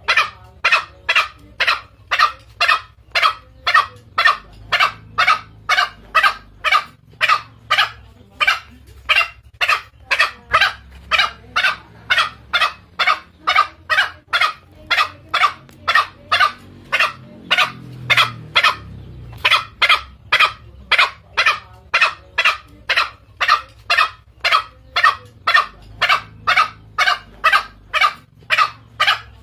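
Green junglefowl lure calls: a short, sharp call repeated evenly about twice a second, with a brief break a little past the middle.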